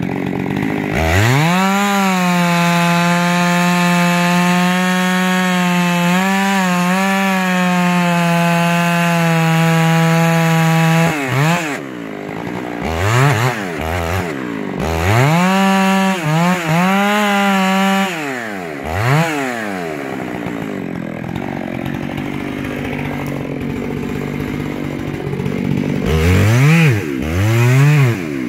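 Chainsaw cutting into the trunk of a lodgepole pine: it revs up about a second in and runs at full throttle for about ten seconds, drops to idle with a couple of quick blips, runs at full throttle again for about three seconds, then idles and gives two short revs near the end.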